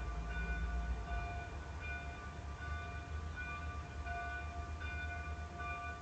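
Weird-sounding webcam audio: several steady whistling tones at different pitches cutting in and out irregularly over a continuous low rumble.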